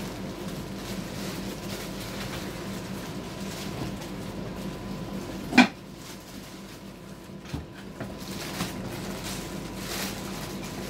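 Plastic wrapping crinkling and a cardboard box rustling as a boxed cookware casserole is unpacked by hand, with one sharp knock about halfway through and a lighter one a couple of seconds later.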